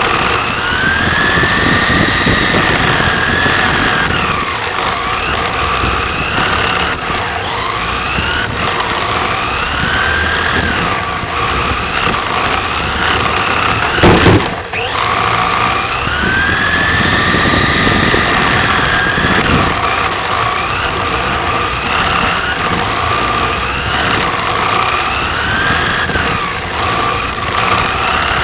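Onboard sound of an electric 1/10-scale RC touring car lapping: the motor and gears whine, rising and falling in pitch as the car speeds up and slows, in a pattern that repeats each lap. There is one sharp knock about halfway through.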